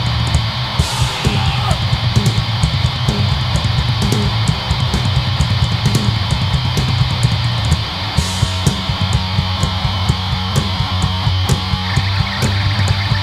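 A hardcore punk band playing live: distorted electric guitar and bass over a drum kit, with fast, regular cymbal and drum hits. The riff changes about eight seconds in to longer held notes.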